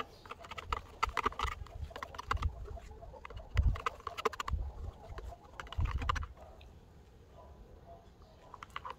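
Spoon stirring a thick creamy hair-colour mask in a plastic dye bowl: irregular scraping and clicking against the bowl with a few low knocks, easing off after about six seconds.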